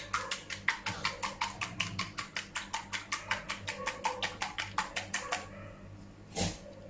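A fork beating thin egg-and-milk batter in a plastic bowl: a rapid, even run of light clicks, about five or six a second, that stops about five and a half seconds in. One sharper knock follows near the end.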